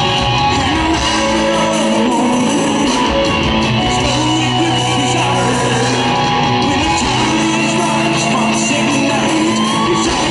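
Live rock band playing, with electric guitars to the fore and some singing, heard from the audience. The music is loud and steady, with held guitar notes and bends.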